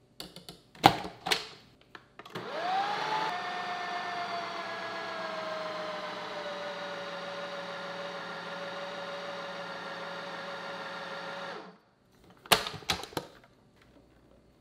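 Ninja food processor: a few sharp knocks as the lid goes on, then the motor spins up with a rising whine and runs for about nine seconds, its pitch slowly sinking as the cheese-biscuit dough thickens around the blade. It cuts off, and the lid and bowl knock again as they come off the base.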